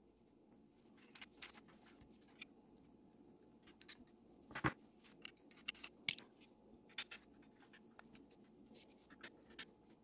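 Scattered small clicks and taps of diecast model-truck parts (plastic interior tub, plastic body shell, metal axles and chassis) being handled and set on a tabletop, with two louder knocks about halfway through.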